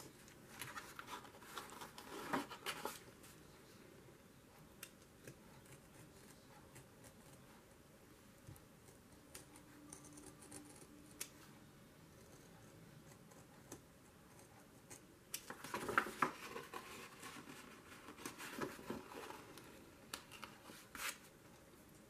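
Snap-off utility knife blade scoring and cutting a slot through a painted paper journal page, in short scratchy strokes. The cutting comes in two bouts, a short one at the start and a longer one about fifteen seconds in.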